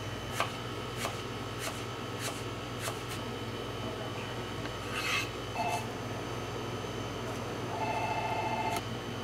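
Small kitchen knife clicking against a plastic cutting board while trimming fruit, about one click every half-second for the first few seconds, over a steady kitchen hum. About five seconds in comes a short scraping rasp, and near the end a buzzing tone lasts about a second.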